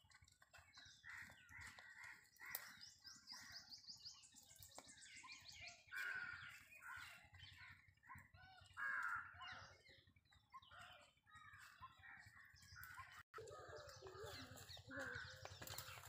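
Faint calls of domestic fowl: chickens clucking in short repeated calls, with a rooster crowing.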